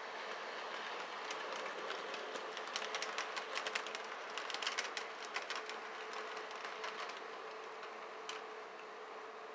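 HO-scale brass model steam locomotive running on the layout: a steady hum with a rapid patter of small metal clicks from its wheels on the rail joints and turnout, thickest in the middle as it passes and growing fainter as it moves away.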